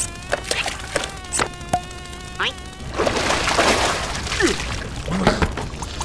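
Cartoon sound effects: an insect-like buzzing drone at a steady pitch, with clicks, ending in a rising whine about two and a half seconds in. It is followed by a noisier splashy rush as liquid spills from the cups.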